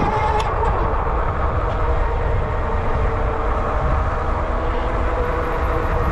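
Electric bike riding at speed: wind buffeting the action camera's microphone over a steady low rumble of road noise, with a steady whine from the Ariel Rider D Class's hub motor.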